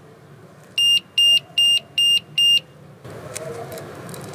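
LiPo cell voltage checker's built-in buzzer giving five short, high-pitched beeps in a quick even row about a second in.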